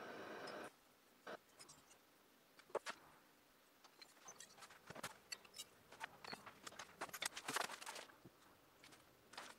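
Background music cuts off under a second in. After that come faint scattered clicks and crinkling, busiest around seven to eight seconds in, from a plastic bag in a cardboard box being handled.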